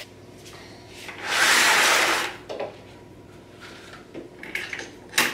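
Horizontal slatted window blinds being lowered, the slats rattling and sliding together in one burst of about a second, then a few faint rustles and a sharp click near the end.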